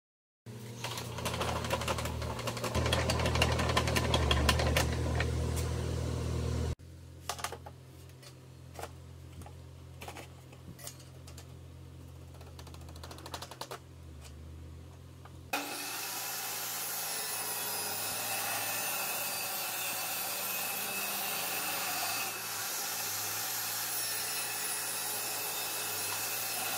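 A table saw in three edited stretches. First about six seconds of loud low hum with crackle, then quieter scattered clicks and knocks as a steel rule is set against the saw table. From a little past halfway, the table saw runs with a steady, even noise as a plywood sheet is fed to it.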